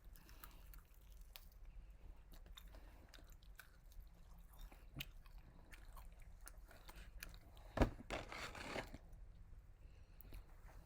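A person chewing fried food close to the microphone: faint, soft crunches and wet mouth clicks. There is one louder, sharp crunch about eight seconds in.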